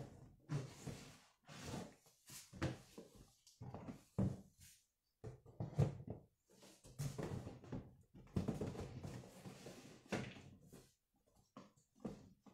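Goods being shifted and pressed down inside a large cardboard box: an irregular run of thuds, knocks and scuffs against the cardboard.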